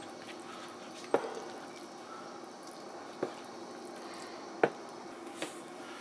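Eating sounds from a microwaved noodle meal: four short sharp clicks over a steady low hum.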